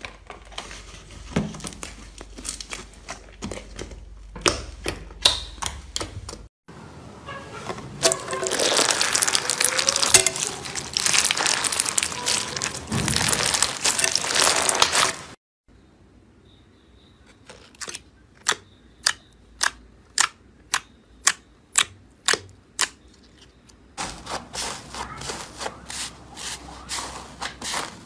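Slime being handled, with clicking and crackling throughout. First a dried iceberg-slime crust is broken open with scattered cracks. Then clear slime packed with plastic letter beads is squeezed, with dense, crunchy crackling. About halfway through comes a regular run of sharp pops, about two a second, and near the end there is crackling again as slime is pressed.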